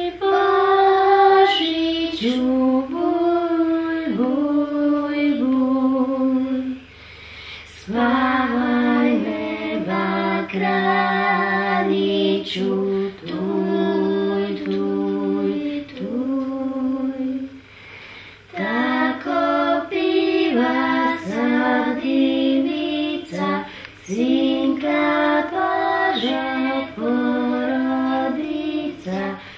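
A woman and young girls singing a carol to the infant Jesus together, unaccompanied, in slow held-note phrases broken by brief pauses for breath.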